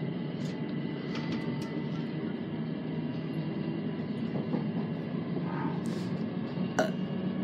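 Steady running noise heard inside an electric passenger train as it pulls away from a station, with a faint steady whine above it. A few short sharp clicks come through, the strongest about seven seconds in.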